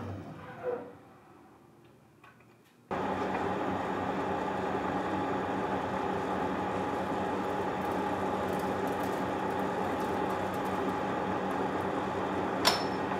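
A woodworking power tool dies away, followed by a pause of about two seconds. Then a power tool motor starts abruptly at full speed and runs steadily at a constant pitch, with one sharp tick near the end.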